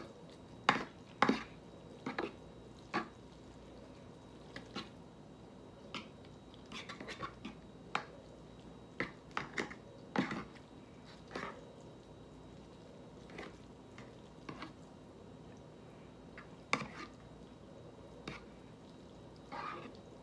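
Metal fork stirring wet ramen noodles in a red plastic Rapid Ramen cooker: irregular clicks, taps and scrapes of the fork against the bowl, loudest about a second in, around ten seconds in and near seventeen seconds.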